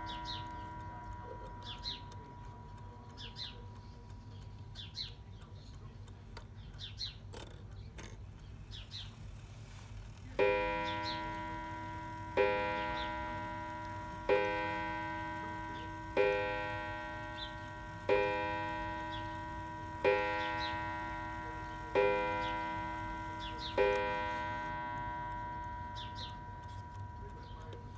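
Smiths Enfield mantel clock striking the hour on its coiled gong: eight slow, evenly spaced strokes about two seconds apart, starting about ten seconds in. Each stroke is the same ringing note, fading away until the next.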